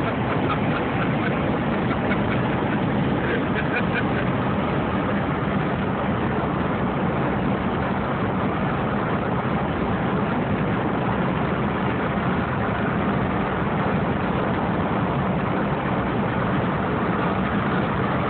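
Steady road, engine and wind noise heard from inside a car's cabin while it drives at highway speed.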